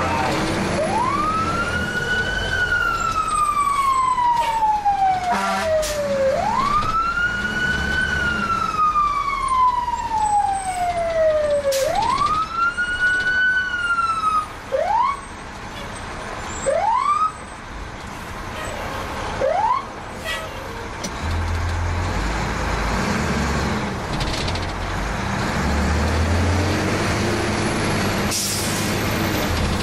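Fire engine siren heard from inside the cab: three long wails, each rising quickly and falling slowly, then three short upward chirps about two seconds apart. After that the siren stops and the truck's engine and road noise carry on.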